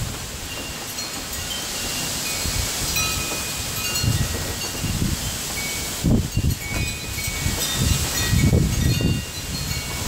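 Storm wind gusting and buffeting the microphone in surges, strongest about six seconds in and again near the end, with wind chimes ringing in many short, scattered high notes.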